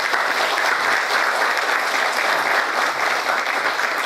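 A lecture-class audience applauding steadily, welcoming a guest speaker.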